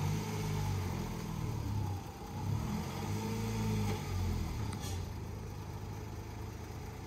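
Lexus IS200 drift car's engine idling, its pitch rising and falling slightly a few times.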